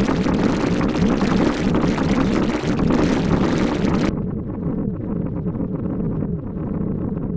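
Designed glitchy electronic buzz loop: hissing static over a dense buzzing hum. About four seconds in, the hiss cuts off abruptly, leaving a muffled low buzz streaked with repeated downward sweeps.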